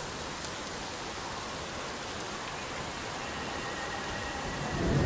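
Heavy rain pouring down onto a flooded street: a steady, even hiss. A louder low sound swells briefly near the end.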